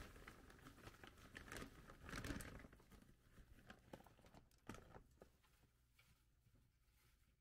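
Faint crinkling of a plastic bag of timothy hay being handled, with rustles and light clicks as hay is pulled out; loudest about two seconds in, dying away after about five seconds.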